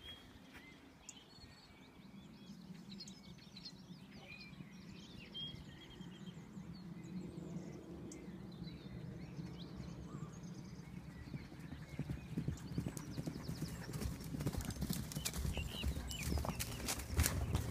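Hoofbeats of Spanish Mustangs galloping on grass, growing louder as the herd comes close, with a horse whinnying.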